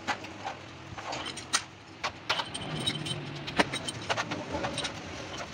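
Sharp metallic clinks, about eight or nine at irregular intervals, as steel engine main bearing caps and bolts are handled and knocked against each other and the engine block during reassembly.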